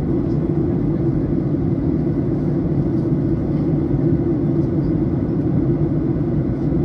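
Steady drone inside the cabin of a Ryanair Boeing 737 in flight: the jet engines and the airflow over the fuselage, heard at a window seat over the wing, a deep even roar with no change.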